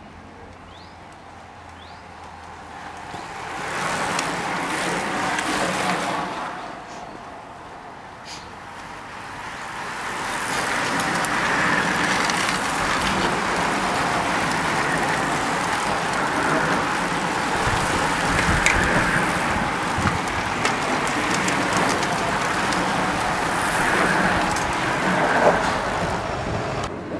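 A motor vehicle passes about four seconds in. Then a large pack of road-racing bicycles streams past for about fifteen seconds, a steady rush of tyre noise with many small drivetrain clicks. A following car comes through at the back of the pack near the end.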